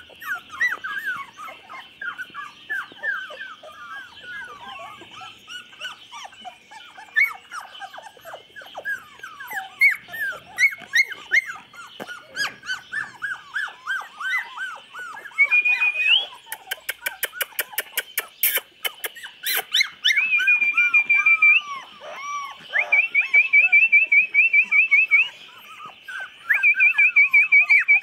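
A litter of 24-day-old chocolate Labrador puppies whimpering and squeaking, many short high cries overlapping. Partway through comes a run of sharp clicks, and near the end there are quick strings of high chirps.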